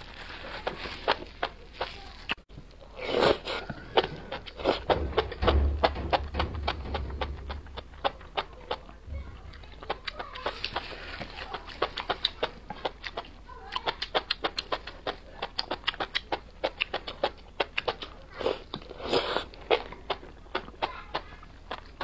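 Close-miked mouth sounds of chewing enoki mushrooms in spicy broth: a quick, steady run of small wet clicks, with a few louder noisy bursts a few seconds in and near the end, and a brief low rumble about five seconds in.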